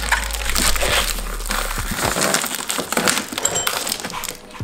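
Clear heavy-duty shipping tape crinkling and crackling as hands bunch and press it around a plastic fender side-marker grille, a dense run of small crackles.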